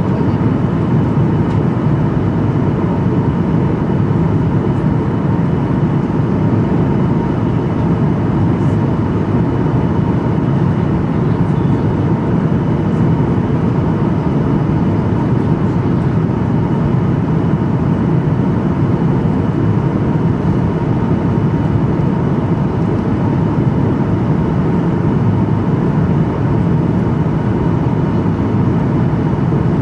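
Airplane cabin noise: a steady low rumble of engines and rushing air, with a faint steady whine above it.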